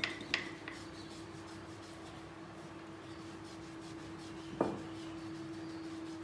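Rolling pin rolling a slice of bread flat on a silicone mat, a soft rubbing, with a few clicks at the very start and a single knock about four and a half seconds in, over a steady hum.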